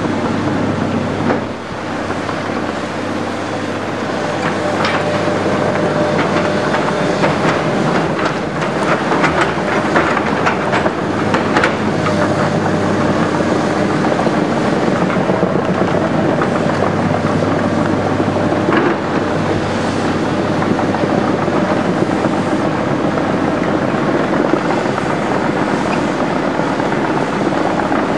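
Tracked hydraulic excavators working in rock spoil: diesel engines running steadily with a faint hydraulic whine, and irregular clanks and clatter of stone against steel buckets and tracks, most frequent about eight to twelve seconds in.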